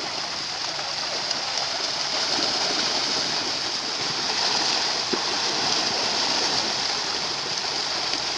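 Steady splashing and churning of shallow water as a crowded catch of fish thrashes inside a net being hauled in by wading fishermen.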